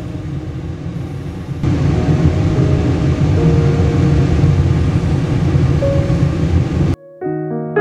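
Background music: a dense, rumbling track with a few held tones that grows louder about one and a half seconds in and cuts off suddenly near the end, giving way to a piano piece.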